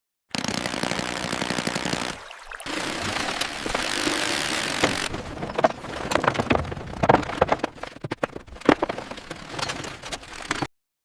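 Miniature-construction sound effects: a rapid mechanical rattle for about two seconds, like a power tool working rock, then a hissing rush, then a run of irregular knocks and taps.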